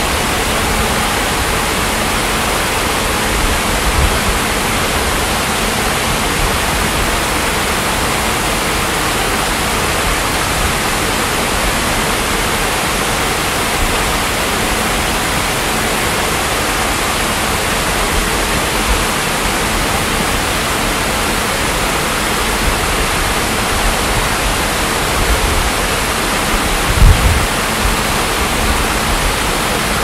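Water pouring over a tiered rock cascade into a pond: a steady splashing rush, with a brief low thump near the end.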